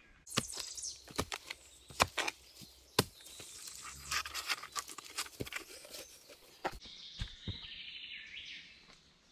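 Hands-on work with a shovel and log stools in soil: a run of sharp knocks and thuds over scraping and scuffling noise.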